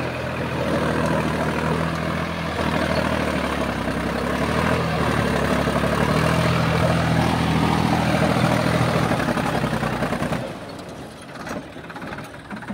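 Solis 5015 tractor's diesel engine running steadily while working the field with a rear-mounted rotary tiller. The sound falls away sharply about ten seconds in.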